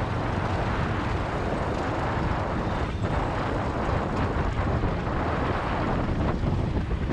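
Steady wind buffeting the microphone on a moving motorcycle, with engine and road noise running underneath.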